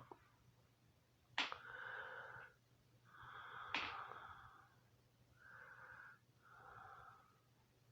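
A person breathing close to the microphone: four wheezy, breathy breaths about a second long, the first two starting with a sharp sniff-like click.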